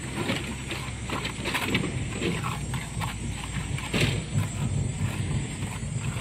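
Irregular knocks and scrapes of stones and wet concrete being worked by hand in a cyclopean-concrete footing, over a steady low engine hum.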